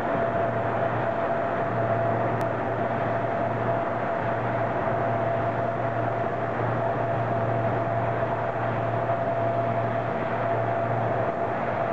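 LC-130 Hercules's four Allison T56 turboprop engines running: a loud, unbroken drone with a constant whine over it.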